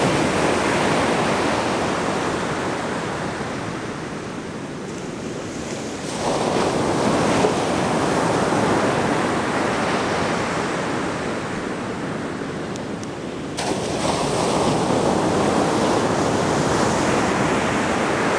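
Ocean surf breaking on a sandy beach: a steady wash of waves, with a fresh wave crashing in about six seconds in and again about thirteen and a half seconds in, each fading away before the next.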